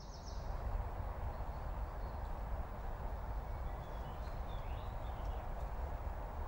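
Outdoor ambience: a steady low rumble under a rustling hiss, with a few faint bird chirps about four to five seconds in.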